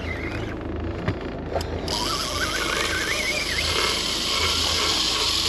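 A fishing reel's drag screaming as a dogtooth tuna runs and strips braid off the spool. The drag starts about two seconds in with a wavering whine over a steady hiss, above the low hum of the boat's engine.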